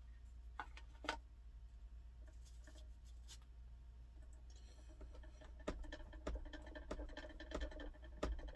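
Cheese being grated on a small metal grater over a plastic container: a few handling clicks at first, then from about halfway a run of scraping strokes, roughly one every half second or so, with a faint metallic ring. A steady low hum sits underneath.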